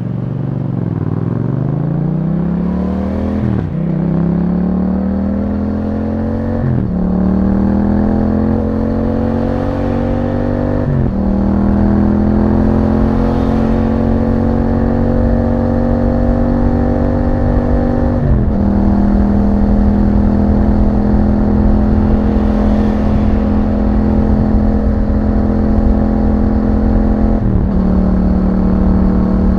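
2021 Yamaha MT-07's 689 cc parallel-twin engine through an Akrapovic exhaust, accelerating up through the gears: the engine note climbs, drops sharply at each of five upshifts, and the climbs get slower and the note steadier in the higher gears.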